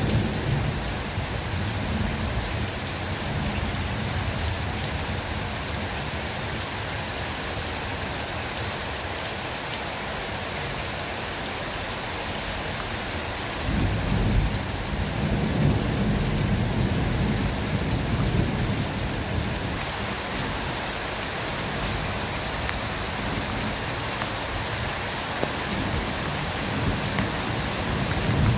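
Steady rain falling in a forest. A low roll of thunder comes in suddenly about halfway through and rumbles on for several seconds.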